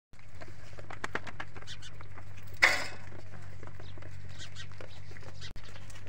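Goats feeding from a metal basin of grain: many small clicks and crunches of eating over a steady low hum, with one short loud animal cry about two and a half seconds in.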